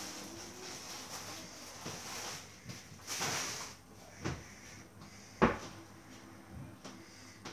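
Someone handling things in a kitchen: rustling and shuffling noises with a few knocks, and one sharp, loud knock about five and a half seconds in.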